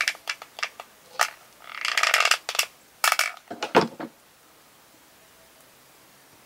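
Small craft pieces and tools being handled on a tabletop: a run of clicks and light knocks, with a rustling scrape about two seconds in, then it goes quiet about four seconds in.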